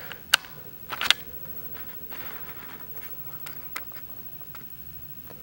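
Light handling noise from a hand holding the device: two sharp clicks in the first second or so, then a soft rustle and a few faint ticks.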